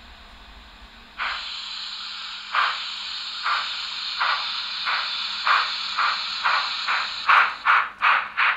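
Steam sound from a Märklin H0 model of the French 241-A steam locomotive's digital sound decoder as the locomotive starts off: a sudden hiss of steam about a second in, then exhaust chuffs that quicken from about one a second to more than two a second as it speeds up.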